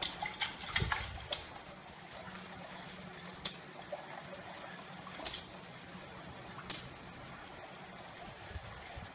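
Water splashing in short separate bursts: several in quick succession at the start, then single splashes every second or two.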